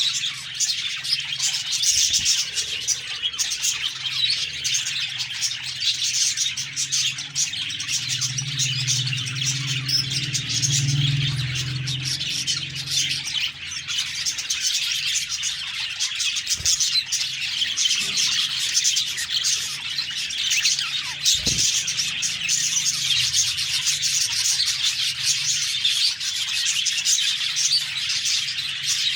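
A flock of budgerigars chirping and warbling continuously, many short overlapping chirps. A low hum sounds under them for a few seconds about a third of the way in.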